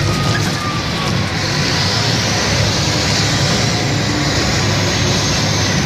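Large mining haul truck's diesel engine running under way, a loud steady low rumble heard from the operator's deck. A faint high whine joins about a second and a half in.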